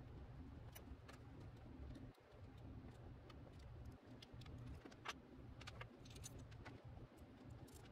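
Faint, scattered clicks and light taps of ignition coils with metal brackets and wires being handled and set down on a wooden workbench, the sharpest about five seconds in, over a low steady hum.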